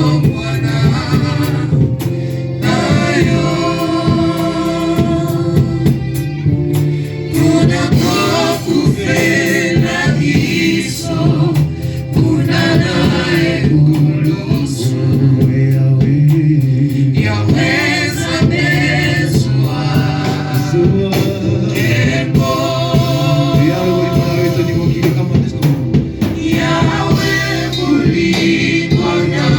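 Gospel song sung by a choir of voices over steady low instrumental notes, continuous and loud.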